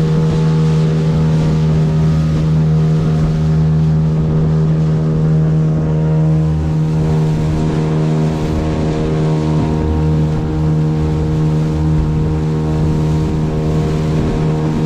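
Fishing boat's motor running at a steady speed under way, its even drone unchanged throughout, over a steady hiss of wind and water.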